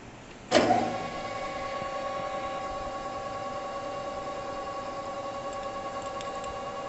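Metal lathe starting up with a sudden clunk about half a second in, then running steadily with a constant hum as the chuck spins the workpiece.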